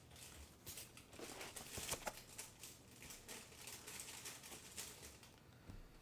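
Faint rustling and light knocks from plastic and cardboard packaging being handled, with a cluster of crinkles about one to three seconds in.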